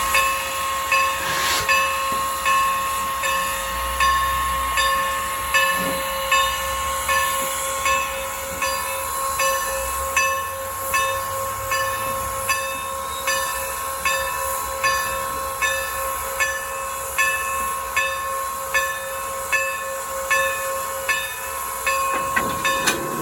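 Norfolk & Western #475 steam locomotive standing with steam up. Its air pump is working in an even beat of about three strokes every two seconds, over a constant steam hiss and a steady high ringing tone. There are a couple of short knocks along the way.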